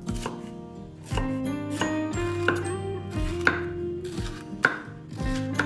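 Chef's knife chopping a red bell pepper on a wooden cutting board: sharp knocks of the blade hitting the board, roughly one a second, the loudest two in the second half. Background music plays throughout.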